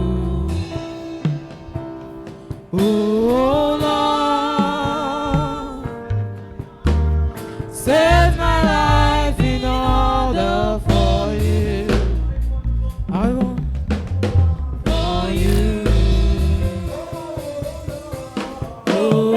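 Gospel worship music: a singing voice in long, bending phrases over a drum kit and instruments.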